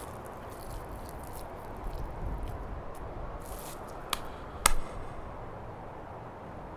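Designed foley for a swelling pomegranate aril: a low, steady noise bed, then a short click and a sharp wet pop a little over four seconds in as the seed bursts.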